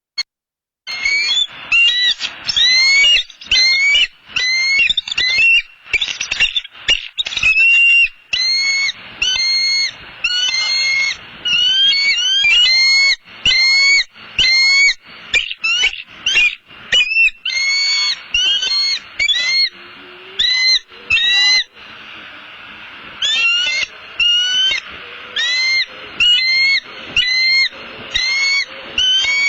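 Bald eagles calling in a long, high-pitched chattering series of short notes, several a second, easing off briefly about twenty seconds in. This is the eagles' alarm call at an intruder near the nest.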